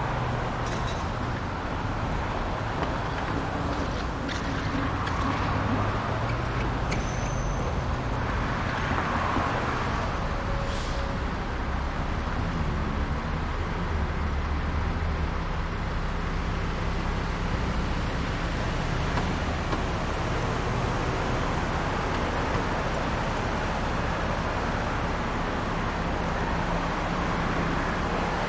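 Suburban street ambience: steady traffic noise with motor vehicles running and passing. A few brief, faint high clicks and chirps come in the first half.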